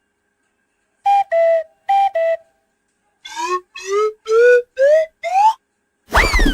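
Whistle-like sound effect: two pairs of short steady notes, each stepping down in pitch, then five short notes that each slide upward. A loud sweeping tone with a thump starts near the end.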